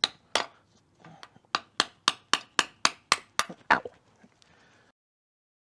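Hammer blows on the ball joint stud of a VW Beetle trailing arm, knocking the ball joint out: one strike, a short pause, then a quick run of sharp metal-on-metal strikes about four a second that stop about four seconds in.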